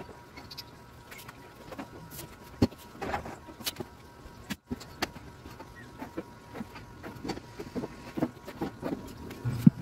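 Scattered knocks and taps of plywood cabinet boxes being shifted and lined up by hand, over a faint steady hum.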